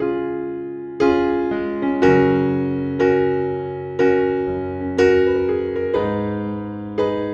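Background music: slow electric piano chords, struck about once a second, each ringing out and fading.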